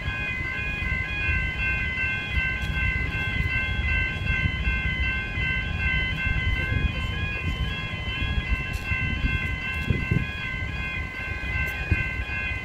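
Level crossing warning bells ringing with a steady, rapidly repeating chime, over the low rumble of an electric suburban passenger train passing through the crossing.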